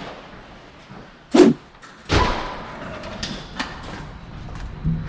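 A door shutting with one heavy thud about a second and a half in, followed about two seconds in by a steady low rumble that sets in suddenly and keeps going.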